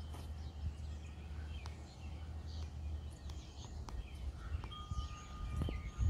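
Wind chimes ringing, one clear note held from about three-quarters of the way in, amid the short chirps of small backyard birds at a seed feeder, over a low steady rumble.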